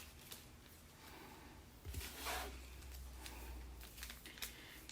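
Faint handling of packaged cleaning wipes, with one short, soft tearing rush about two seconds in as a joined pair of wipe packets is pulled apart.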